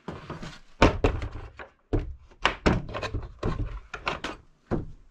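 Wooden door and its small metal barrel-bolt latch being worked by hand: a run of knocks, thunks and latch clicks, loudest about a second in.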